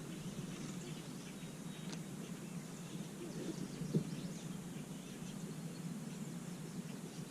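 Quiet outdoor ambience on a lake: a steady low hum with faint bird chirps, and a single light knock about four seconds in.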